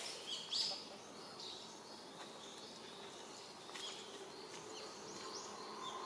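Woodland ambience with small birds chirping: two short, louder high chirps about half a second in, then scattered faint calls over a steady background hiss.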